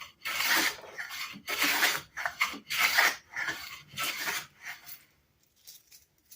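Sargent 409C corrugated-sole bench plane shaving across wood: about four rasping strokes, each about half a second long and a little over a second apart, then softer, shorter rubs near the end. These are test passes with the freshly re-sharpened and adjusted iron.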